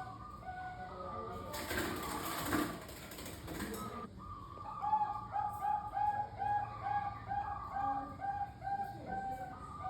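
Bangkok-strain zebra dove (perkutut) cooing: repeated short, pitched coo notes. About five seconds in comes a quick run of about ten evenly spaced notes. About a second and a half in, a noisy rustle lasts a couple of seconds.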